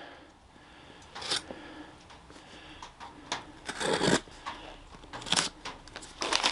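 Cardboard parcel being opened with a pocket knife: irregular scrapes and rustles of blade on packing tape and cardboard, loudest about four and five seconds in.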